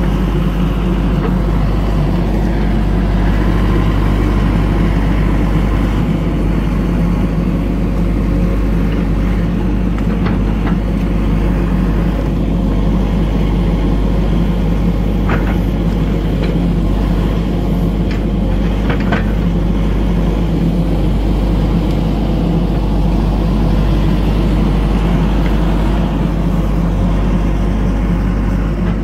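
John Deere 60G compact excavator's diesel engine running steadily under load as the boom and bucket dig soil. A few short knocks from the bucket and machine come between about ten and twenty seconds in.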